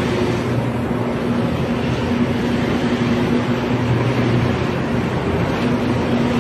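Electric arc furnace arcing on a scrap steel melt: a loud, steady, dense noise with a low hum underneath.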